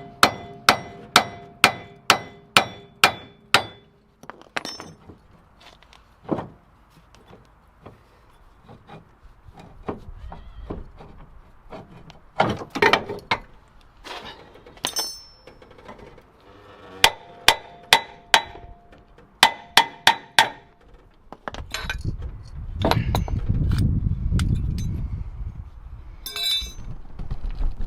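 Hammer blows on the metal of a seized front wheel hub assembly to free it from the car. Each strike rings, coming in quick runs of about two a second, with a burst of eight or so at the start and another near the end. A low rumbling stretch follows late on.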